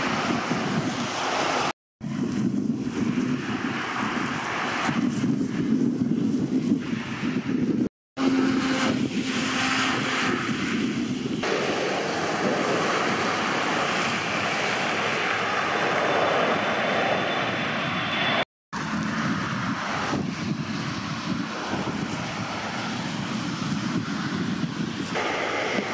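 Airliner engines running, mixed with wind buffeting the microphone and the hiss of heavy rain, as a steady loud noise. The sound cuts out completely three times for a split second.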